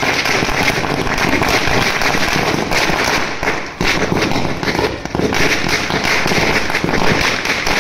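A string of 1,000 firecrackers (a Diwali ladi) going off on the ground in a rapid, unbroken run of small bangs, dipping briefly about four seconds in.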